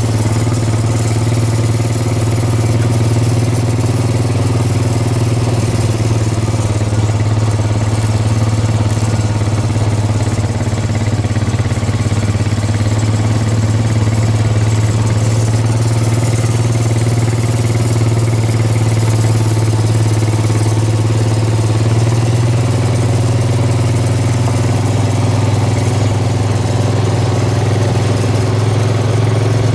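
Quad bike engine running steadily at a slow, even pace, a constant low hum with no revving.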